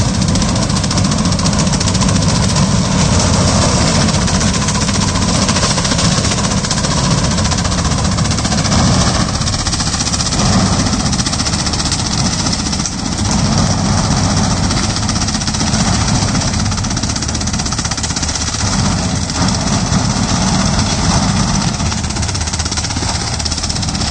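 Engine of a banana tree cutting machine running steadily and loud, without letting up.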